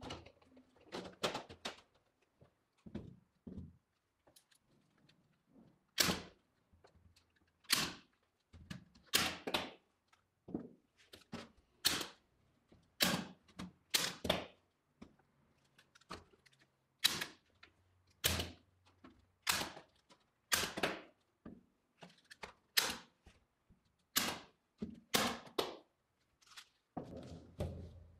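Steel mesh being fitted into a heater box: a series of sharp clacks and knocks, about one a second and unevenly spaced.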